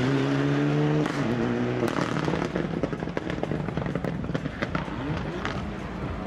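Rally car engine revving hard as it pulls away, the note breaking twice for gear changes in the first two seconds. It then gives way to a rapid run of sharp exhaust pops and crackles, growing fainter as the car moves off.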